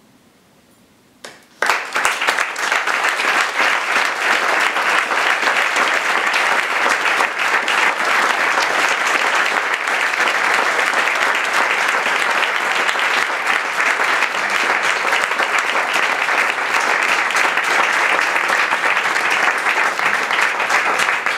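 A small standing crowd applauding: near quiet, one early clap, then steady applause breaks out about a second and a half in and keeps up.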